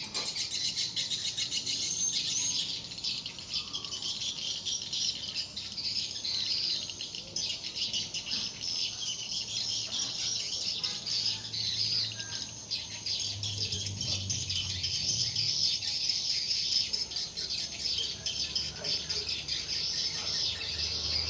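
Many swiftlets twittering at once inside a swiftlet house, a dense, continuous high-pitched chirping and rattling chatter.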